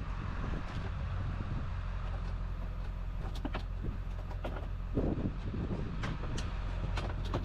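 A vehicle engine idling with a steady low hum, with scattered light clicks and knocks of rubbish being handled and a louder knock about five seconds in.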